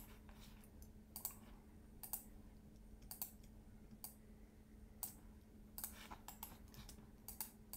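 Faint, irregular clicks of a computer mouse and keyboard, one or two a second, over a low steady hum.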